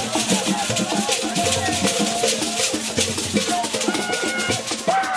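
Traditional Idoma dance music played on drums and shakers, keeping a quick, steady rhythm. A few pitched notes are heard over the percussion.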